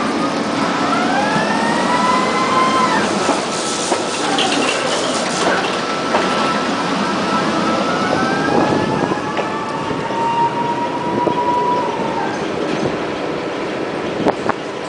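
Tram running on its rails, heard from inside the car: a steady rolling rumble with the wheels squealing in long whining glides, once about a second in and again, longer, from about seven to twelve seconds in.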